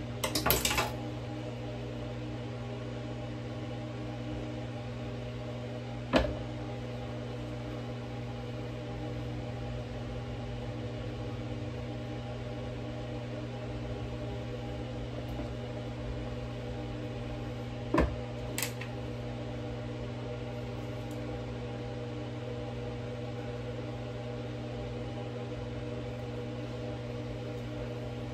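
Steady machine hum with a few sharp knocks: a short clatter at the start, one about six seconds in and one about eighteen seconds in.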